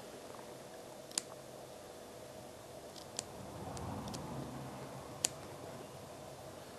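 Small scissors picking and snipping into the fabric layers of a machine-made linen wash button: a few faint, sharp clicks, three clearer ones about two seconds apart, with a soft rustle of cloth around the middle.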